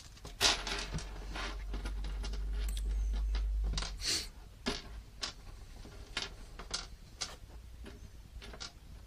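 Small steel M3 screws clicking and rattling on a hardboard desktop as they are spilled from a bag and picked through by hand, in scattered irregular ticks. A low rumble sits under the first few seconds.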